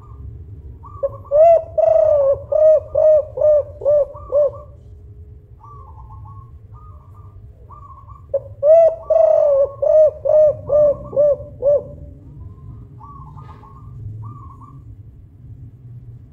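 Spotted dove (tekukur) cooing loudly in two phrases, each a run of about seven or eight evenly spaced coos lasting about three and a half seconds, starting about a second in and again about eight seconds in. Softer, higher calls come between the phrases.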